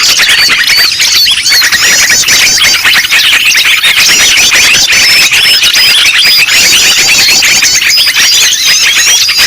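Loud, dense chorus of many small songbirds chirping and twittering at once, with a rapid trill repeating high above it every second or two: a noisy agitated-bird lure recording ('suara burung ribut') used to draw in small birds.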